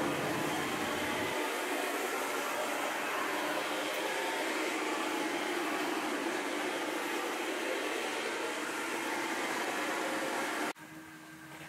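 Paint spray booth's ventilation running: a steady rushing of air that cuts off suddenly near the end.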